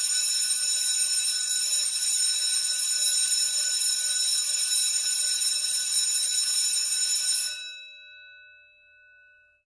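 Title-sequence sound effect: a loud, steady, high metallic ringing over a hiss, made of many held tones. It stops about seven and a half seconds in, leaving a few tones that ring and fade out over the next two seconds.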